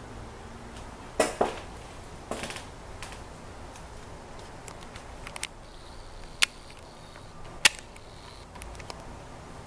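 A handful of sharp clicks and knocks at irregular intervals over a steady low hiss, the sharpest a little past six and near eight seconds in.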